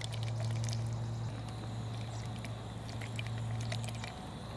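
A camp stove burning with a steady low hum under a steel pot of water close to the boil, with small splashes and clicks as torn chunks of false morel mushroom are dropped into the water. The hum fades near the end.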